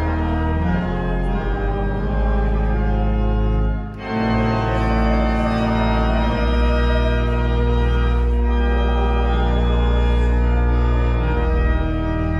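Church organ playing sustained chords, with a brief break between phrases about four seconds in.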